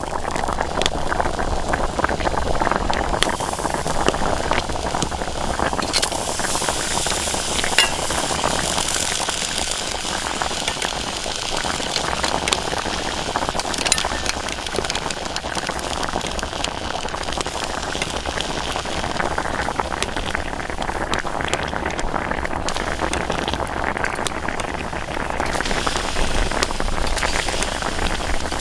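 Rice boiling in an aluminium pot, a steady bubbling with occasional sharp clicks.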